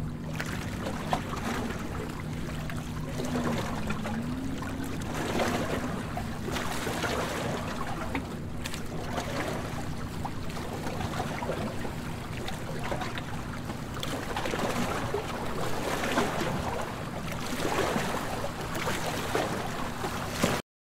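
Water noise that swells and fades several times over a steady low hum, with one hum tone briefly wavering in pitch about three to four seconds in. The sound starts and stops abruptly.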